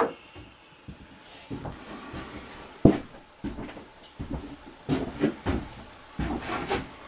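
Handling noise at a rifle shooting bench: a sharp knock at the start and another about three seconds in, then a run of smaller clunks and rustles.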